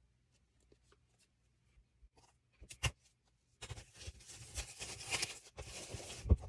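Packaging of an iPad box being opened by hand: a couple of light clicks, then about two seconds of crinkly rustling and tearing, a brief pause, and more rustling.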